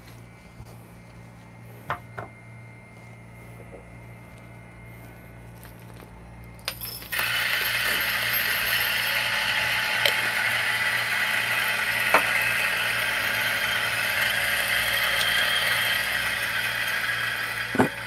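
Electric 64 mm flat-burr coffee grinder fitted with high-uniformity (HU) burrs grinding a dose of espresso beans: a steady grinding whir that starts about seven seconds in and stops just before the end, after a couple of light clicks.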